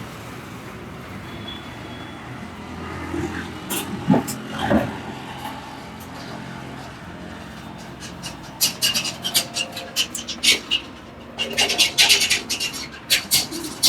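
Quick runs of sharp hand slaps from a percussive head and back massage, several a second, starting a little past halfway. A steady hum of street traffic lies under them.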